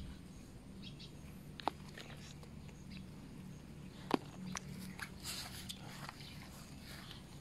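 A cat chewing its catch in the grass: a few faint sharp crunching clicks, the loudest about four seconds in, among soft rustling of grass and leaves.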